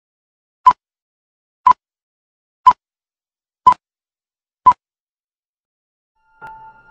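Film-leader countdown beeps: five short, sharp beeps, one each second. Near the end a soft, held musical tone starts.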